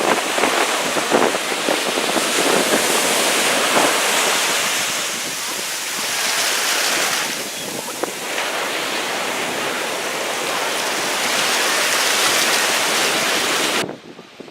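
Ocean surf washing up the beach, swelling and easing, with wind on the microphone. It cuts off abruptly near the end to a much quieter background.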